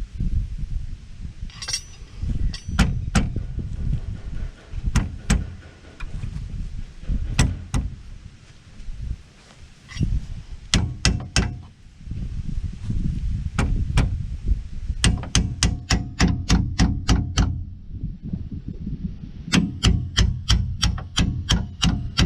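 Hammer blows on steel: scattered single strikes at first, then fast runs of about four to five blows a second with a faint metallic ring. This is brute force used to drive out a seized rear wheel hub.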